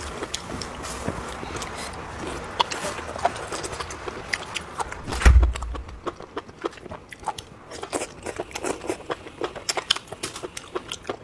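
Close-up eating: biting and chewing with many small crisp clicks and wet mouth sounds. One loud, deep thump about five seconds in.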